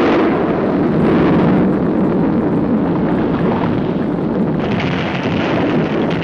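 Old film soundtrack effect of a volcano erupting: a loud, continuous rumbling without letup. A brighter hissing layer joins about four and a half seconds in.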